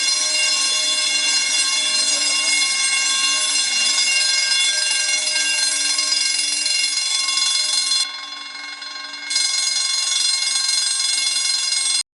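Fire sprinkler alarm bell ringing continuously, the bell that signals water flowing in a sprinkler system. Its ringing turns briefly duller and quieter about eight seconds in, then cuts off suddenly near the end.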